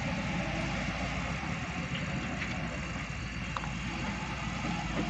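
Volvo excavator's diesel engine running steadily as the machine works, with a couple of faint clicks.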